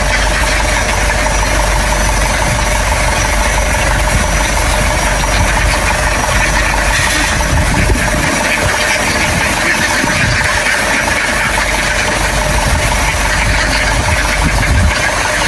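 A motor engine running steadily at an even speed.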